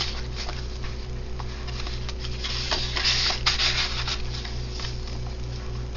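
Paper and card rustling and sliding as tags and inserts in a handmade paper journal are handled, in short scrapes that are loudest a little past the middle. Underneath runs a steady low hum that pulses about three times a second.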